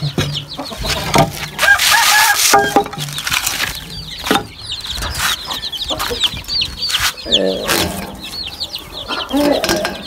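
Chickens clucking, with many short high chirps through the middle and lower clucks near the end. Under them are the rustle and a few knocks of a felt sheet being handled and tucked down.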